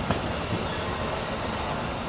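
Amtrak passenger train rolling slowly along the platform track, a steady rumble of wheels on rail with one sharp click right at the start.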